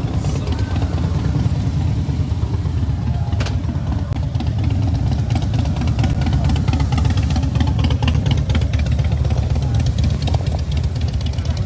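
Motorcycle engines running, a steady deep low sound.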